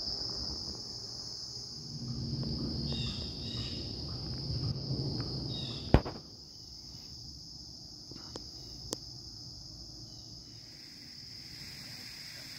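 Steady high-pitched trill of an insect chorus in the woods. Low rustling runs under it for a few seconds and ends in a sharp click about halfway through.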